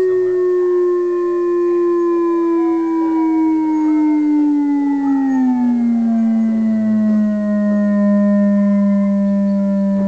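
A steady sustained tone with a stack of overtones, gliding slowly and smoothly down in pitch and dropping most steeply about five to six seconds in: a swept test tone exciting a home-made wok drum to find its vibration modes for cymatics.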